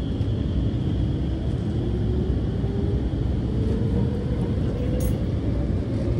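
SMRT R151 metro train accelerating out of a station, heard from inside the car: a steady low rumble of the running gear with the traction motors whining in a slowly rising pitch. One short click about five seconds in.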